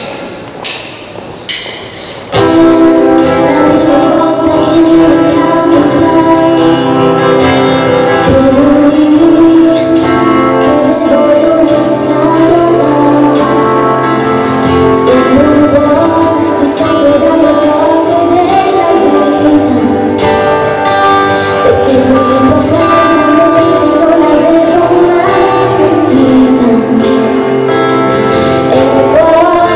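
A live pop band plays an Italian song while a young woman sings lead over keyboards, acoustic and electric guitars, bass and drums. The music is quieter and sparser for the first two seconds, then the full band comes in loud.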